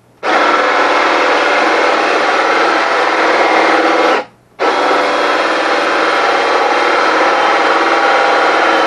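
Power drill driving a hole saw through very hard plywood, the saw grinding steadily as it cuts, hot enough that the wood smokes. The drill stops briefly about four seconds in, then starts again.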